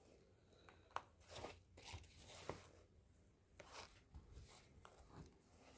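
Faint, scattered rustles and small clicks from a sneaker being handled while its toe is hand-stitched with waxed thread.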